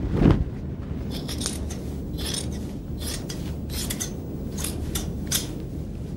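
A dull thump, then a series of about nine short, crisp scraping strokes at irregular spacing over a low steady rumble.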